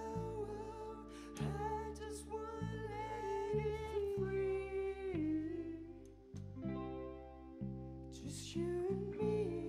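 Live band music in a slow passage without words: held melody notes over a bass line that changes every half second or so, with electric guitar and synthesizer.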